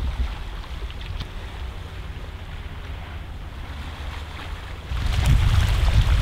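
Outdoor wind rumbling on the microphone over gentle sea along a pebble shore, jumping louder about five seconds in.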